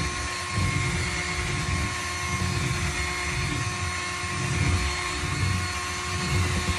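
A small motor running steadily with a constant whine, over an uneven low rumble.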